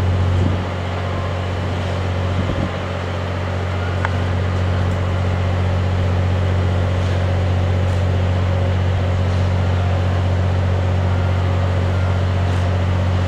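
Steam locomotive C11 207 being turned on a turntable: a steady low mechanical hum with a hiss of venting steam.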